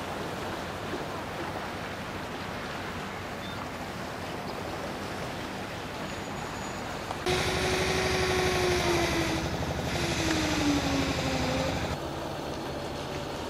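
Steady outdoor noise, then about seven seconds in a vehicle engine comes in louder, its whining tone sliding down in pitch twice, before it cuts off abruptly a second and a half before the end.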